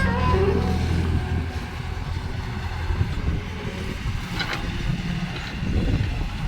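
Excavator diesel engine running steadily, with a few short metallic clinks about four and a half seconds in.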